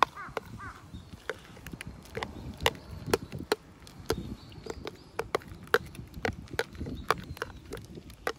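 Stray cats crunching dry cat food: sharp, irregular crunches, a few a second, over a low background rumble.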